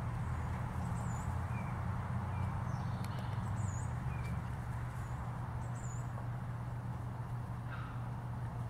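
Outdoor ambience: a steady low hum under an even hiss, with a few faint, short bird chirps scattered through.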